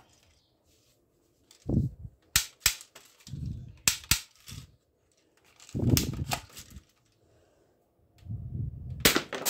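Plastic toy AK-47 rifle being handled, with sharp plastic clicks from it: two pairs of clicks a third of a second apart, and another near the end, amid the rubbing and knocking of the gun in the hands.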